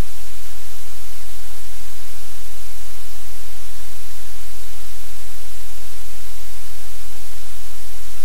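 Loud, steady hiss of static with a low hum underneath, unchanging throughout, with no other sounds.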